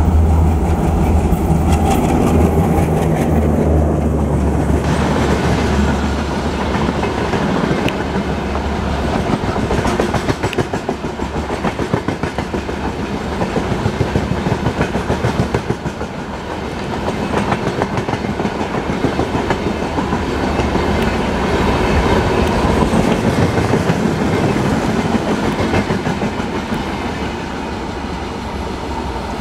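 Diesel locomotive and its long passenger train passing at speed. The locomotive's engine drone is loud for the first few seconds, then gives way to the steady clickety-clack and rattle of the coaches' wheels on the track as the rake rolls by.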